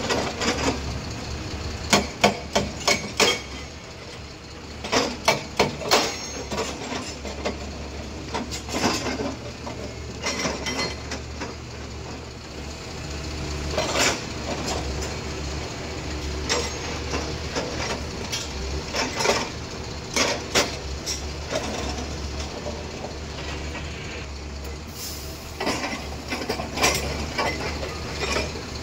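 Excavator-mounted hydraulic rock breaker hammering in short bouts of sharp metallic blows, repeating every few seconds, over the steady low drone of the excavator's engine.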